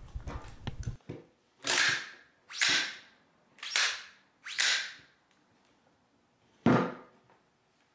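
The pump hand grip of a ComGraf pump-action conversion kit being worked back and forth along an AR-15 upper assembly, sliding metal on metal: four raking strokes about a second apart, then one sharper clack near the end. A few light handling knocks come first.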